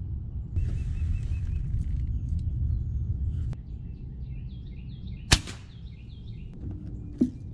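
A pre-charged pneumatic AirForce air rifle fires one sharp shot about five seconds in, with small birds chirping just before it and a smaller click near the end.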